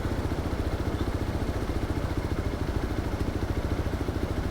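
Single-cylinder Hero Xpulse 200 4V motorcycle engine running at low, steady revs, its firing pulses coming in an even rhythm.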